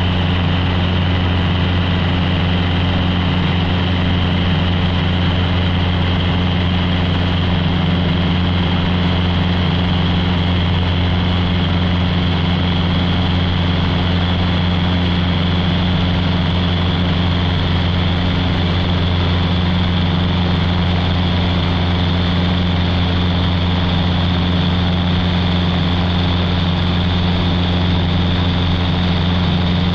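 Cessna 150's four-cylinder Continental O-200 engine and propeller running steadily at an unchanging power setting, a constant low hum.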